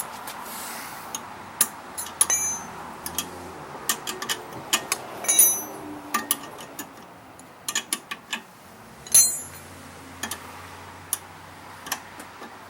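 Scattered metallic clicks and clinks of hand wrenches being handled and tried on a nut, three of them ringing briefly.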